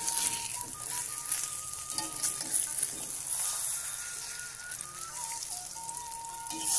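Beaten egg with sliced shallots and chili frying in hot oil in a wok, with a steady sizzle; a spatula scrapes the pan now and then.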